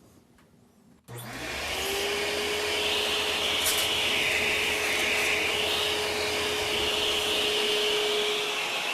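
Vacuum cleaner switched on about a second in, its motor whine rising briefly as it spins up and then running steadily with a high airy hiss, used to suck dirt and debris out of an electrical outlet box.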